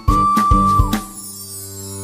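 Background music: a held melody note over a beat, then a sustained chord with a high falling sweep in the second half.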